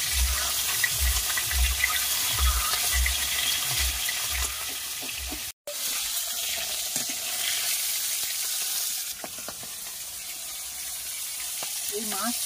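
Pieces of char koda river fish sizzling as they shallow-fry in hot oil in an aluminium wok, with a metal spatula scraping and tapping as they are turned. Repeated low thumps sound in the first half, and the sound cuts out for a moment about halfway through.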